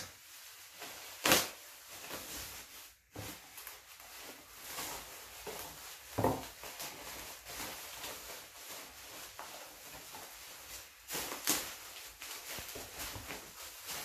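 Plastic bubble wrap rustling and crinkling as it is pulled and handled in a cardboard box, with a few louder crackles, the loudest about a second in.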